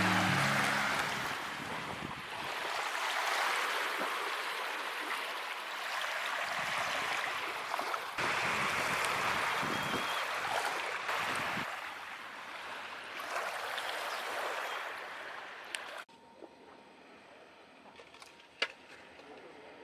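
Small waves washing onto a lake shore, swelling and fading every few seconds. About 16 s in it cuts off abruptly to a much quieter background with a few faint clicks.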